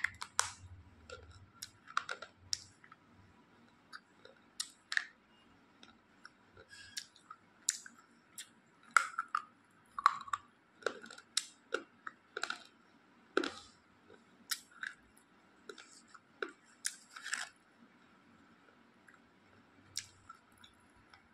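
Slate pencil being bitten and crunched between the teeth: irregular sharp crunches, dying away near the end.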